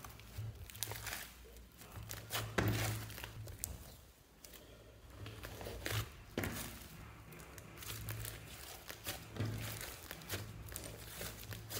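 Hands kneading and stretching a large mass of soft, fluffy slime: irregular squishing with many small crackles and clicks, and soft low thuds as it is pressed down on the table.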